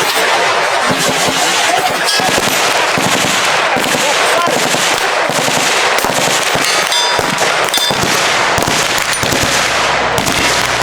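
Rapid, overlapping gunfire from several guns at once, many shots a second without a break.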